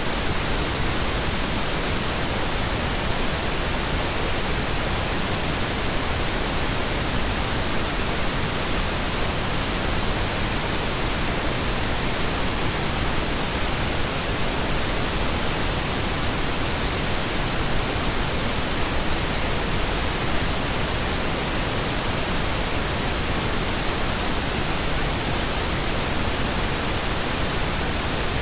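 Steady pink noise: an even, unchanging hiss spread across the whole range of pitch, with no events or changes.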